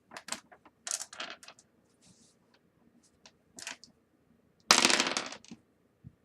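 Dice clicking and clattering in scattered groups, with one denser, louder rattle a little under five seconds in.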